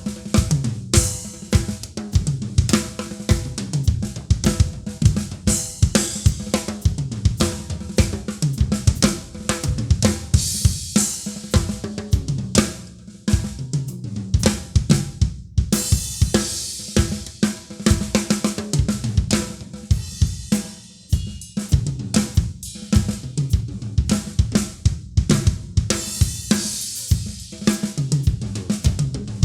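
Acoustic drum kit played continuously: rapid snare and bass drum strokes under hi-hat and cymbal crashes, with no other instruments evident.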